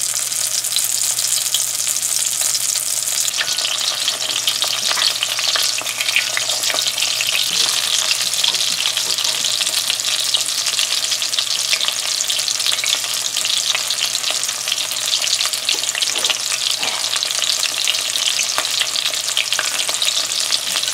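Shrimp-stuffed bitter melons (karela) frying in hot oil: a continuous sizzle with dense crackling and popping as the melons are lightly browned.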